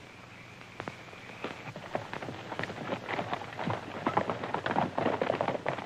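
Hoofbeats of a troop of cavalry horses moving off together: many irregular clopping strikes that start sparse and grow thicker and louder as the horses get going.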